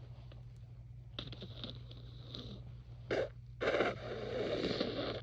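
A person with a head cold sniffing through a congested nose. Soft crackly sniffles come first, then a short sharp burst about three seconds in, and a louder burst of breath that trails on for about a second near the end.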